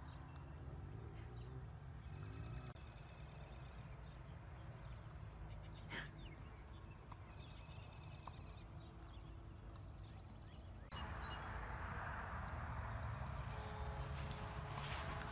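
Faint outdoor background: a steady low rumble with faint high animal calls twice. About eleven seconds in, the background turns louder and hissier.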